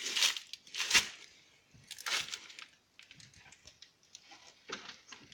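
BMW F800GS motorcycle pushed in gear with the engine off, making a strange crunching noise from the drivetrain: three loud rasping bursts about a second apart, the middle one the loudest, then fainter irregular ticks. The owner cannot tell what causes it.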